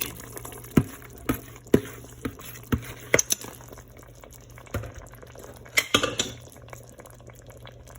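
A spoon knocking and scraping against cookware about a dozen times, in uneven clusters, as a creamy sauce is added to simmering chicken and dumplings, with faint bubbling beneath.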